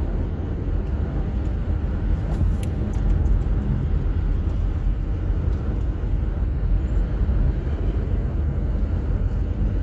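Steady low rumble of a car driving at highway speed, heard from inside the cabin: tyre and road noise with the engine running underneath.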